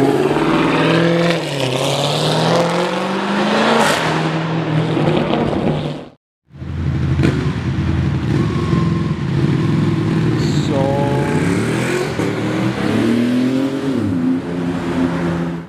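A sports car engine revving, its pitch climbing over about four seconds. After a short break, a Porsche 911's flat-six pulls away hard, rising again near the end.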